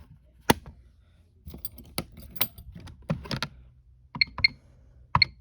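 Security alarm keypad being operated: scattered clicks and rattles, then four short beeps in two pairs near the end as keys are pressed.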